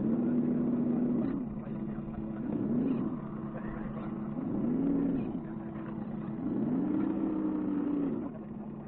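Electric motor of a 1:10 scale RC crawler whining in four throttle bursts, each rising in pitch, holding and falling away; the last is the longest, about two seconds. A steady low hum runs underneath.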